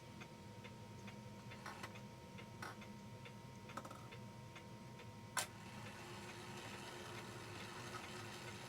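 Mechanical clock ticking faintly and evenly, about three ticks a second, with a few louder clicks and one sharp click about five seconds in.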